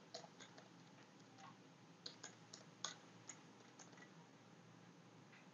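Faint, irregular clicks of a computer keyboard being typed on, a few keystrokes a second, with pauses between runs.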